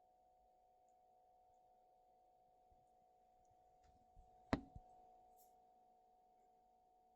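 Near silence with a faint steady hum, broken about four and a half seconds in by one sharp tap with softer ticks just before and after it.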